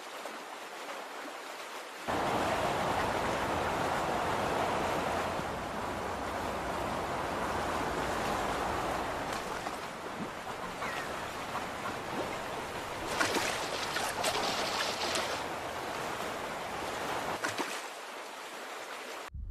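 Outdoor wetland ambience: a steady rushing noise that steps up abruptly about two seconds in, with a few brief sharp sounds about two-thirds of the way through.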